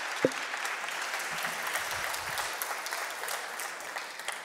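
Congregation applauding to welcome a speaker, a steady patter of many hands clapping that fades out near the end.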